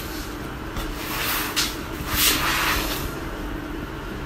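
Plastic sleeve pages of an art portfolio rustling and crinkling as a page is turned, in two swells of a second or so each, over a faint steady hum.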